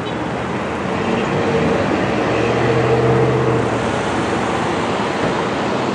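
Fire truck's diesel engine running as it drives slowly past through traffic, its hum swelling about two seconds in and easing off after, over general street traffic noise.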